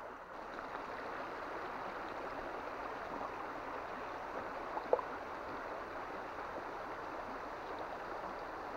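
Steady rush of flowing river water, with a single short click about five seconds in.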